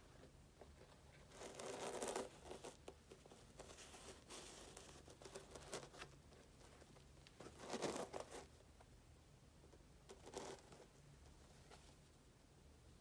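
Gloved hands handling a sneaker: soft rustling and rubbing of gloves against the shoe's fabric and rubber, with small clicks and three louder bursts of rustling.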